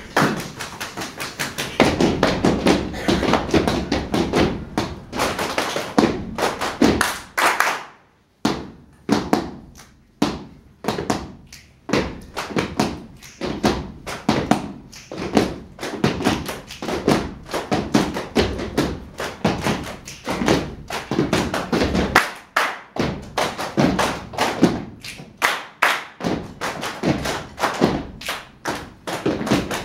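A group doing body percussion in rhythm: many hand claps and thumps in a dense, interlocking pattern. It stops briefly about eight seconds in, then starts again.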